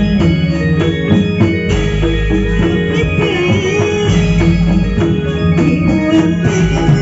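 Reog Indramayu accompaniment music: drums and mallet percussion under a melody line that slides up and down in pitch.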